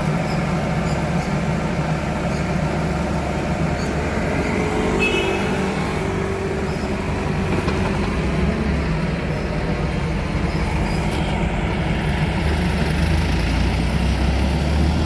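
Heavy diesel engine running steadily, its low hum growing stronger about three quarters of the way through.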